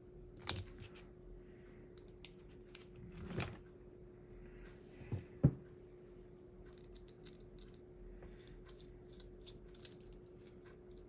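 Small clicks and taps of parts being handled while an HO slot car chassis is taken apart by hand. There are a few sharper knocks and a run of faint ticks near the end, over a faint steady hum.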